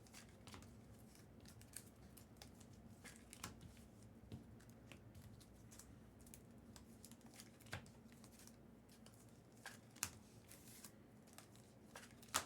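Faint handling of trading cards and pack wrappers: scattered soft clicks, ticks and rustles, a few sharper ones in the second half, over a low steady hum.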